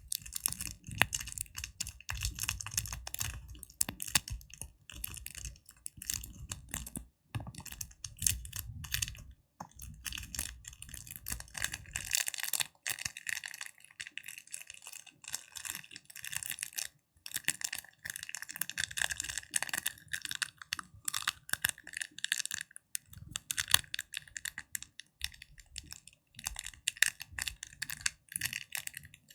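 Fingertips tapping and crackling rapidly, a dense stream of small clicks. A duller low tapping under it drops out about twelve seconds in and comes back some seconds later.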